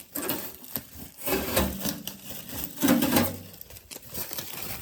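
Handling noises while unpacking a microwave oven: rubbing and rustling of packing material with a few knocks, in bursts that are loudest about a second and a half and about three seconds in.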